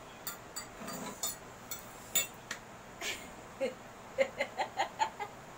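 Forks clinking and scraping against plates while eating noodles, in sharp separate clicks. About four seconds in, a short quick run of laughter mixes with the clinks.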